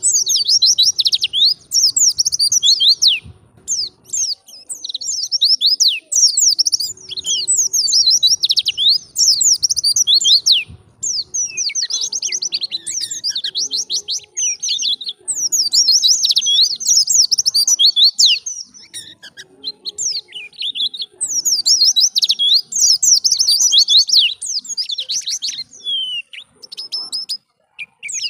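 White-eye (pleci) singing: long runs of fast, high twittering song, each phrase several seconds long, broken by short pauses.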